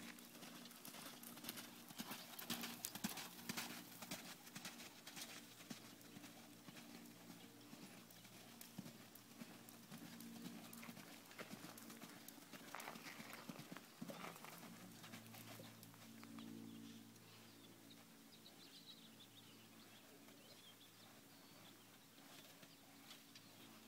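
Faint hoofbeats of a ridden quarter horse moving over soft arena dirt, thickest in the first few seconds and sparser after, over a low steady hum.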